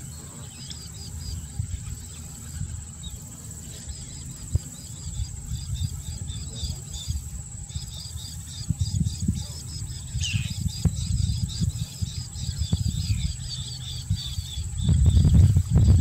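Outdoor marsh ambience: rapid, repeated high-pitched chirping and a steady high whine, with a single falling call about ten seconds in. Wind rumbles on the microphone throughout and swells in a gust near the end.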